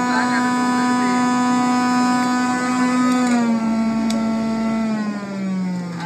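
Electric juicer motor running with a steady whine as basil is pushed down its feed chute. The pitch dips slightly about three and a half seconds in and falls steadily near the end as the motor slows.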